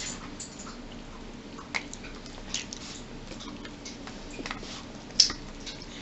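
Eating sounds close to the microphone: chewing, with scattered light clicks and taps of a fork against dishes, the sharpest a little after five seconds in.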